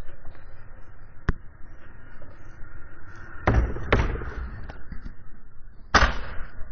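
Stunt scooter riding on paving stones: a steady rolling rumble, a sharp click about a second in, a cluster of knocks and clatter about three and a half seconds in at the box ramp, and a loud smack near six seconds in as the scooter lands on the paving.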